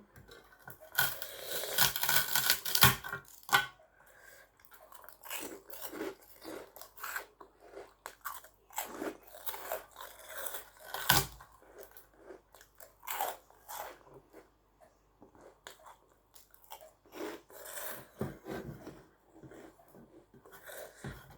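Close-miked eating: chewing and mouth noises with scattered short clicks. A louder crunching or rustling stretch comes in the first few seconds.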